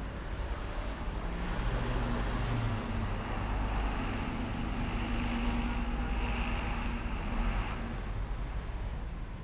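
A motor vehicle running close by in street traffic: a steady low engine rumble that grows louder over the first couple of seconds, holds, and eases off near the end.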